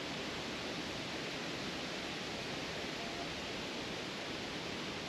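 Steady rush of strong wind, an even noise that holds level throughout.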